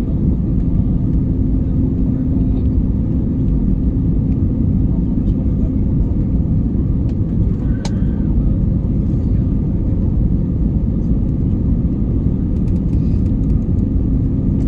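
Steady low rumble of airliner cabin noise, jet engines and rushing air heard from inside the cabin, with a steady hum under it. A single sharp click sounds about eight seconds in.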